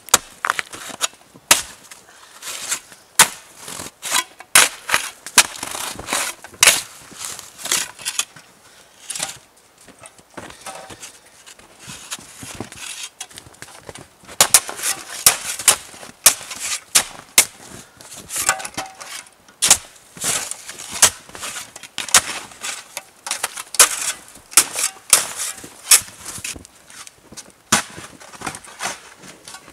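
Snow shovels chopping and scraping into crusty snow: a long run of sharp crunching strikes, often several a second, in clusters with a short lull about a third of the way through.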